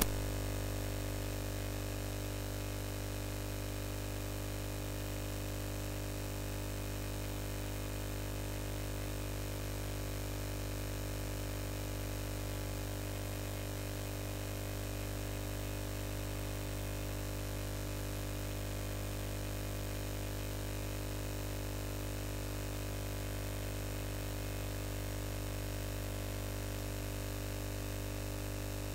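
Steady electrical hum with a light hiss, unchanging throughout.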